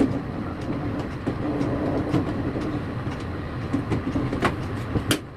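Screws being driven in by screwdriver to fasten a 3.5-inch hard disk into a PC cabinet's metal drive bay, with a few sharp metal clicks near the end, over steady background noise.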